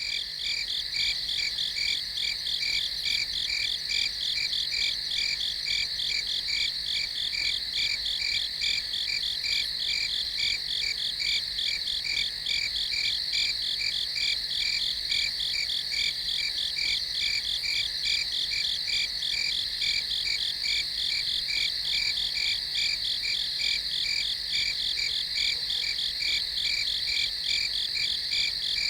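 Night chorus of crickets chirping, many overlapping rapid trills that pulse continuously in several high pitches without a break.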